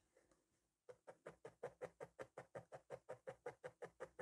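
Felting needle stabbing rapidly and evenly through wool and felt, about six short jabs a second, as a stuffed shape is sealed around its edge. A pause of about a second comes before the jabbing starts.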